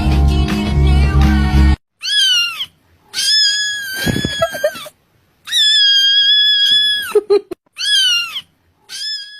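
Background music that stops abruptly, then a cat meowing about six times with short silences between. The meows are high-pitched: some short and arched, two long and held steady.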